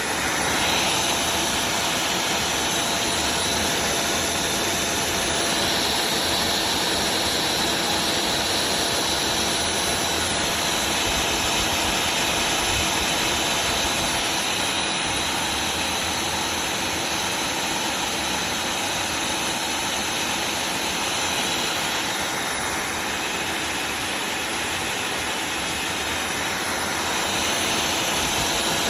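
Tineco iFloor 5 Steam wet-dry floor vacuum running: its suction motor and brush roller give a loud, steady, even rush with a faint steady whine.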